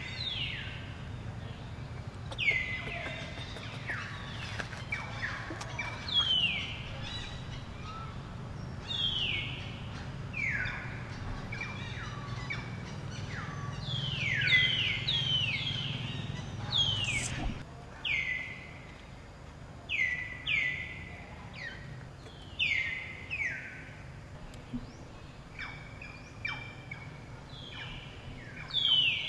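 Bird calls, each a short whistle sliding down in pitch, repeated every second or two, over a steady low hum.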